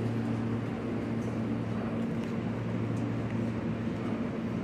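Steady low hum from an R160 subway train standing in the station with its doors open, its onboard equipment running while the train waits.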